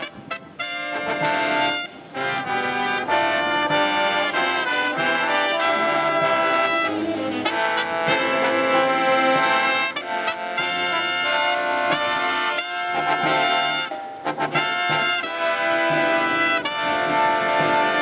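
Marching brass band playing live: trumpets and other brass with saxophones over snare drum and cymbals, in phrases broken by a few brief pauses.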